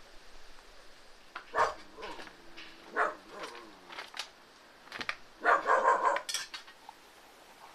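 A dog barking: single barks about a second and a half in and again about three seconds in, then a quick cluster of barks near the end, with a few sharp clicks in between.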